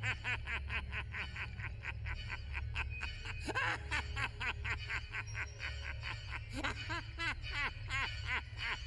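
A man's drawn-out laughter: quick, high 'heh heh' syllables repeated several times a second, over a low steady hum.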